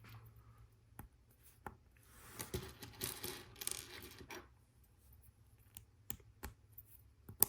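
Plastic Lego Technic pieces being handled and fitted: scattered light clicks, a stretch of rattling and rustling in the middle, and one sharp click near the end.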